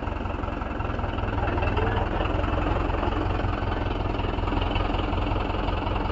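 Mahindra 415 DI tractor's diesel engine running steadily, getting slightly louder about a second in.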